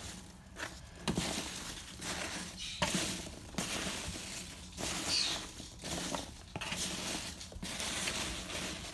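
A hand rummaging through a cardboard box full of foam packing peanuts: the peanuts rustle and crunch against each other and the box in uneven bursts.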